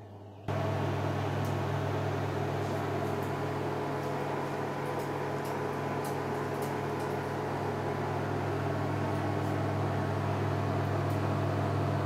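Samsung MC28H5025VP microwave oven running while cooking: a steady low electrical hum with fan noise, setting in abruptly about half a second in.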